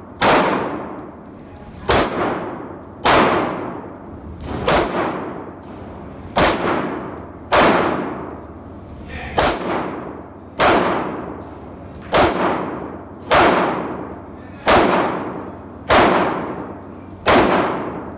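Pistol shots from a 9mm Smith & Wesson SD9VE, about fourteen fired at a slow, steady pace roughly a second or so apart. Each shot is a sharp crack with a long echoing tail off the walls of an indoor range.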